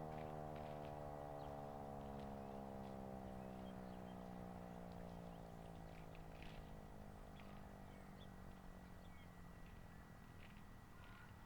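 Federal Sign & Signal Model 3 outdoor warning siren winding down after its attack signal, its pitch sliding slowly and steadily lower as it fades away in the distance.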